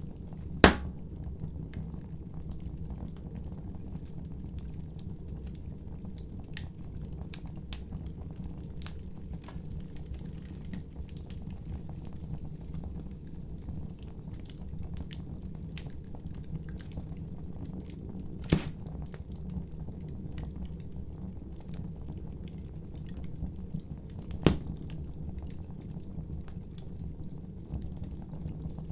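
Wood fire burning: a steady low rumble with scattered small crackles and three loud sharp pops, one just after the start and two in the second half.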